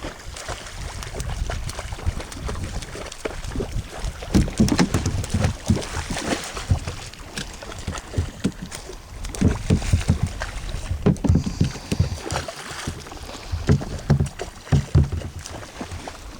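Irregular knocks and thuds on a small open fishing boat over a steady background of water and motion noise, as the crew works a gill net heavy with mullet.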